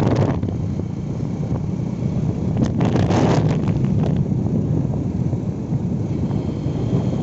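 Steady low rumble of road vehicles with wind blowing on the microphone, and crackling gusts at the start and about three seconds in.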